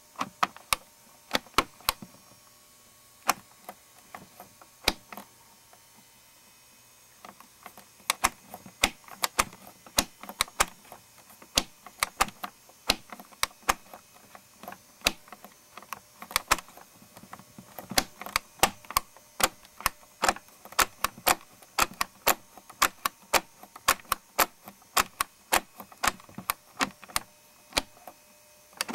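Plastic clicking and clacking from a working BMW R90S engine model kit as its timing gears and rocker arms turn: a few scattered clicks at first, then quick, irregular clicking several times a second from about a quarter of the way in. The gears are painted and move poorly, which the builder suspects is the paint's fault.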